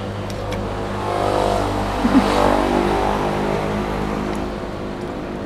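A motor vehicle's engine passing on the street: it swells over the first couple of seconds, is loudest about halfway, then fades, over a steady low traffic hum. A brief sharp sound comes about two seconds in.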